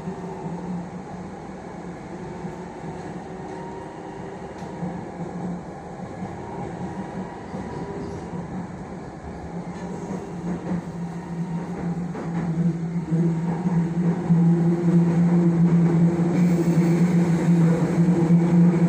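Running noise heard inside a moving Jakarta MRT metro train car: a steady rumble with a low hum, growing louder in the second half.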